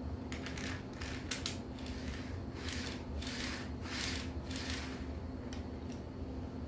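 Plastic HO scale freight car handled on model railroad track: a few small clicks as its plastic wheels are set onto the rails, then a series of short scraping rolls as it is pushed back and forth along the track.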